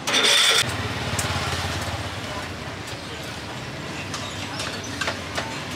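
A motor vehicle engine running close by: a short loud hiss at the start, then a low rumble that fades over a couple of seconds, with scattered light clicks.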